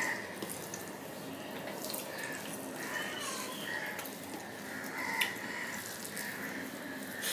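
Bare hand mixing and squeezing puffed rice with curry on a steel plate: soft, wet squishing and rustling, with a sharp click about five seconds in.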